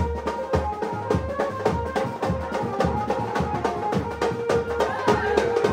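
Music with a steady, quick drum beat and a melody over it.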